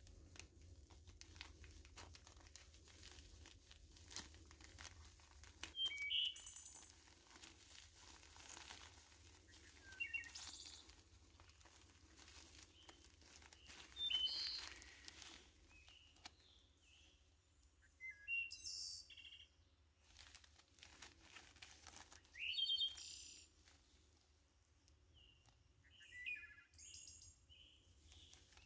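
Clear plastic packets of jig-tying tinsel crinkling and rustling as they are handled, with short bird chirps every few seconds that stand out as the loudest sounds.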